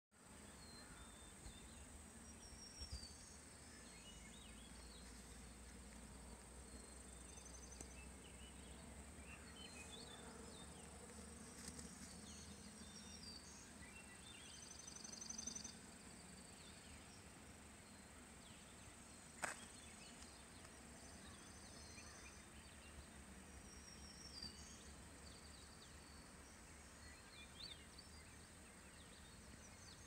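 Near-silent shoreline morning ambience: faint, scattered high chirps and short trills from small birds in the surrounding woods over a low, steady background hum. A single sharp click stands out about two-thirds of the way through.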